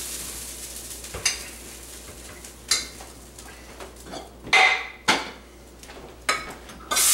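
Metal skillet and lids being handled: about six separate clinks and clanks, the loudest one ringing just past halfway. Just before the end a loud steady hiss begins.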